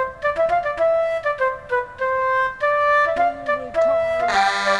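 Music: a melody of short and held notes. Near the end, a loud vehicle siren starts up over it.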